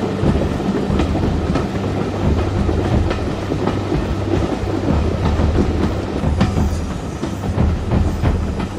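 Heritage steam railway carriage rolling along at speed: a steady rumble from the wheels on the track, with irregular clicks as the wheels pass over rail joints.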